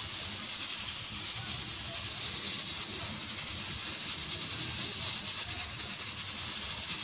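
Steady high hiss of steam from pots cooking on the stove.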